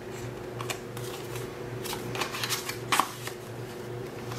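Small cardstock journaling cards being handled and shuffled through: paper sliding and rustling, with a few light taps and ticks, most of them between two and three seconds in.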